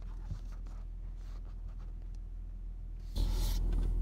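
Phone being handled and shifted against a makeshift prop while it records: a low steady car-cabin hum with a few light taps, then about three seconds in a louder rubbing and scraping close to the phone's microphone.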